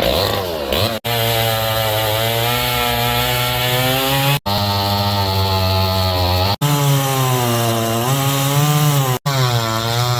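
Proyama PCS50 49cc two-stroke chainsaw running at high revs, its pitch sagging and recovering as if under load cutting wood. The sound breaks off for an instant four times.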